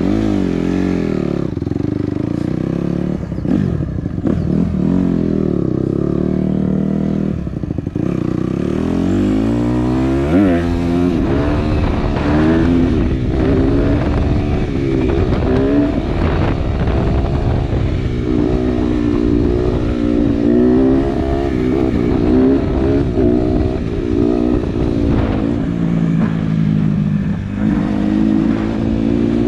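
Honda CRF150R dirt bike's single-cylinder four-stroke engine running as it is ridden, its pitch rising and falling with throttle and gear changes. There is a sharp rev-up about ten seconds in.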